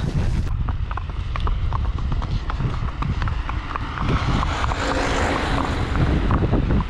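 Horses' hooves clip-clopping on hard ground, a few sharp hoofbeats a second, over a low steady rumble.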